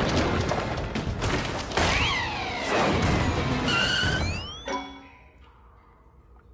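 Cartoon sound effects over background music: a run of thuds and crashes with whistling pitch glides, one falling about two seconds in and several rising near four seconds, then it dies down to quiet about five seconds in.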